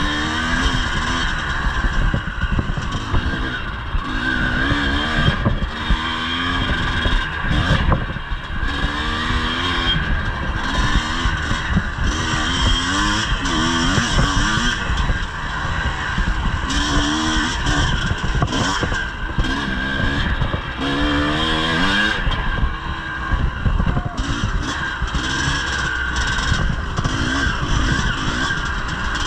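The two-stroke single-cylinder engine of a 1983 Yamaha IT 250 enduro motorcycle, ridden hard on a trail, its pitch rising and falling over and over as the throttle opens and closes.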